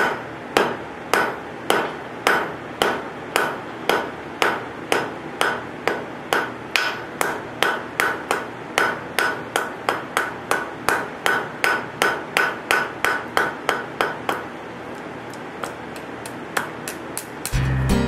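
Blacksmith's hand hammer striking a red-hot iron bar on an anvil: a steady run of blows about two to three a second, forging the end of the bar. The blows stop about fourteen seconds in, followed by a few light taps.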